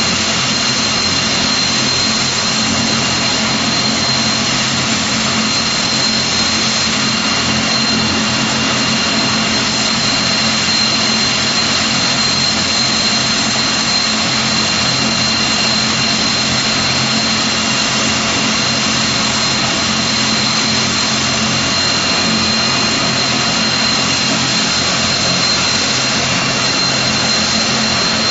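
Vickers Vanguard (Merchantman) airliner's Rolls-Royce Tyne turboprop engines running steadily on the ground, a high turbine whine over a low propeller drone.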